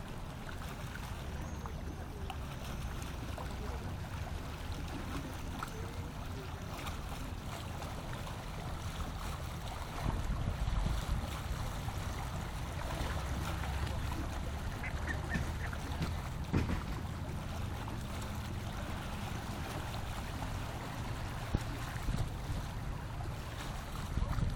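Wind rumbling on the microphone over lapping lake water, with a few faint short bird calls around the middle.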